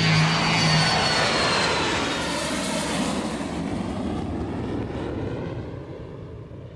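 Airplane engine noise with a high whine that slides down in pitch, fading away steadily over several seconds. The last held chord of the song dies out in the first second.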